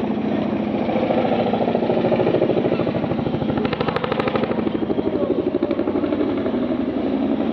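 Boeing CH-47 Chinook tandem-rotor helicopter flying overhead, its twin rotors making a loud, fast, steady chop, sharper for a moment about four seconds in.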